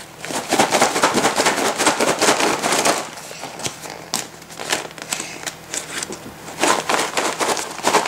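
Puffed-up paper bag of freshly microwaved popcorn shaken by hand: the popped kernels rattle inside and the paper crinkles. There are two bouts of hard shaking, the first starting just after the beginning and the second near the end, with lighter rustling between.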